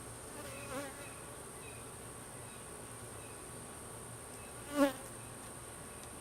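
Honeybees buzzing as they fly close past the microphone: a faint pass about a second in and a louder one near the end.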